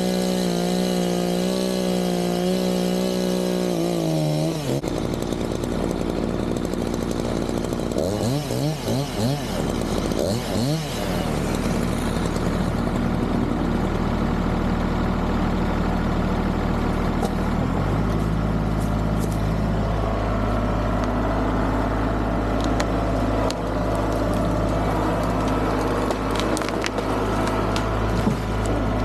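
Two-stroke chainsaw running at full throttle for about four seconds, then dropping back and revved in short bursts. A steady low engine drone takes over for the last ten seconds or so.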